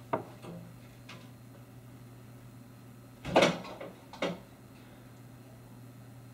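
Household handling knocks: a sharp click just after the start, then a louder knock with a short clatter about three and a half seconds in, and a second knock a second later. A steady low hum runs underneath.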